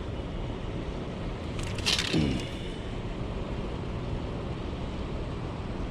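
Steady outdoor rushing noise, with a short clatter of clicks and a brief falling grunt-like sound about two seconds in.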